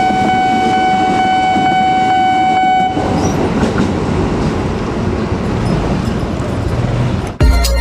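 Electric commuter train sounding one long steady horn blast that cuts off about three seconds in, then the train rumbling past over the rails. Loud music cuts in near the end.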